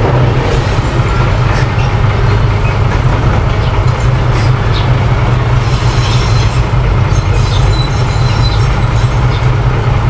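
Small crawler bulldozer's diesel engine running steadily as it pushes dirt: a continuous low rumble with faint, irregular clicks and clanks above it.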